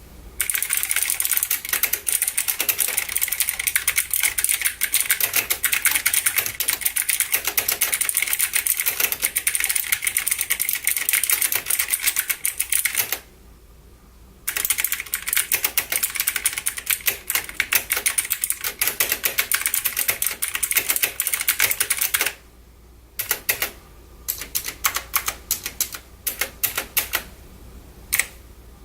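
Fast typing on a Logitech G512 mechanical keyboard with clicky GX Blue switches, near-identical to Kailh Blue switches: a dense stream of sharp key clicks. Typing stops briefly about halfway through and again about three-quarters through, and the last few seconds are slower, separate keystrokes.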